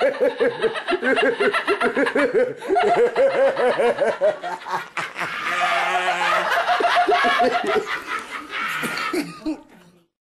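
Several young men laughing hard together, a long run of overlapping laughter that fades and cuts off to silence near the end.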